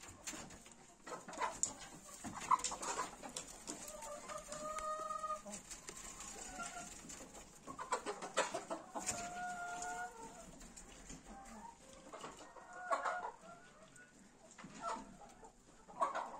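Chickens clucking, with a few drawn-out calls, mixed with scattered sharp clicks and knocks.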